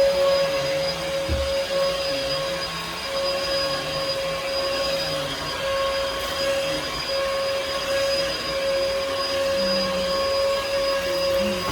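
Bissell PowerForce Helix vacuum cleaner running steadily: a constant motor whine over a rushing hiss of air, with one low thump about a second in.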